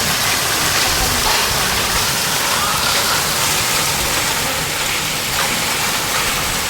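Heavy rain with hail pouring down in a steady hiss.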